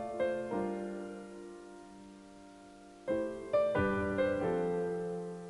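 Soft background piano music: a few struck notes and chords that slowly die away, a lull of about a second, then another short phrase of notes around three seconds in.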